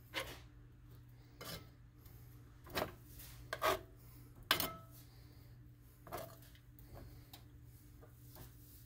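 Metal kitchen tongs clicking and scraping against a nonstick frying pan as strips of raw bacon are moved around. The knocks come irregularly, about one a second, over a steady low hum, and the bacon is not yet sizzling.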